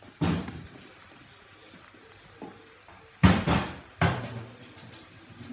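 Swordfish steaks frying in olive oil in a pan, a faint steady sizzle, broken by three sharp knocks: one just after the start, the loudest about three seconds in, and another a second later.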